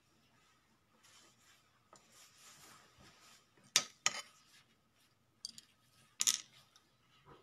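Handling noise close to a phone's microphone: rustling from a nylon puffer jacket and a few sharp clicks and knocks, the loudest about four seconds in and again just past six seconds.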